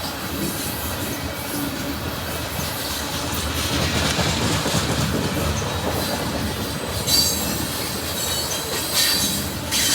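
CSX freight train's cars rolling past close by: a steady rumble and rattle of wheels on rail, with brief high wheel squeals about seven seconds in and again near the end.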